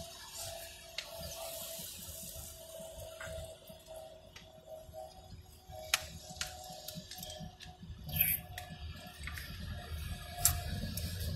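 Water sloshing in a plastic bottle as someone drinks from it, with a few sharp clicks of the plastic, over the low rumble of road noise inside a car.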